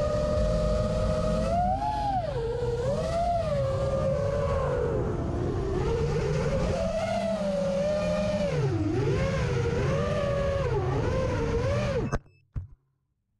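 Electric motors and propellers of an Emax Hawk 5 FPV racing quadcopter whining, the pitch rising and falling repeatedly with the throttle over a rough low buzz. The sound cuts off abruptly about twelve seconds in, followed by a couple of short clicks.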